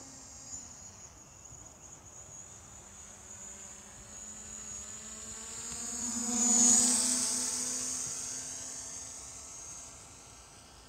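DJI Mavic Pro quadcopter's propellers buzzing as it flies past fast and low, growing louder to a peak a little past halfway, then dropping in pitch and fading.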